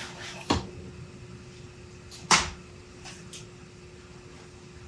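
Plywood box panels knocking together and being set down on a workbench: two sharp wooden clacks, the louder about two seconds in, followed by a couple of light taps.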